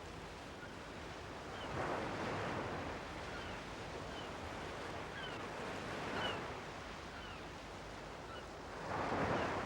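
Sea surf breaking on a shore, a steady wash rising in three waves about every three to four seconds. Faint short high chirps sound over it.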